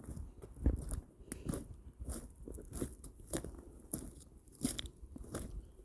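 Footsteps crunching over the dry gravel and stones of a creek bed, an even walking pace of roughly three steps every two seconds.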